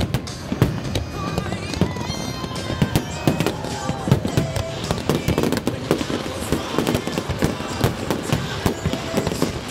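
Aerial fireworks display: shells and comets firing and bursting in quick, irregular bangs and crackles, with music playing underneath.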